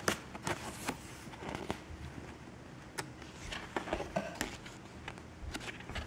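Pages of a thin paper instruction booklet being turned and handled, making short, irregular paper rustles and clicks.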